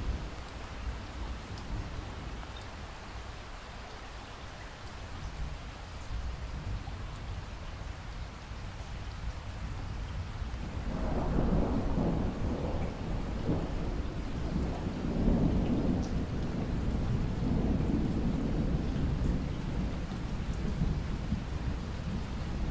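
Steady rain falling, with rolling thunder that swells in about halfway through and rumbles on in waves for several seconds.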